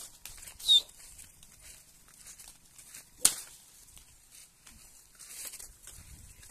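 Two sharp cracks about two and a half seconds apart, the rams butting heads, over the faint sound of the flock moving on grass.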